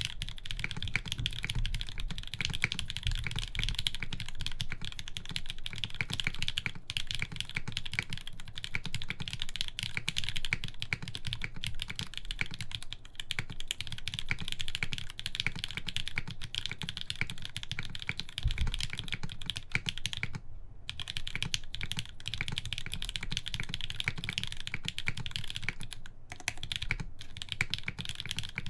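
Fast, continuous typing on a TGR GAF 910 mechanical keyboard with an aluminum plate and Gateron Hippo switches lubed with 205g0: a dense stream of keystrokes, with a short pause about twenty seconds in.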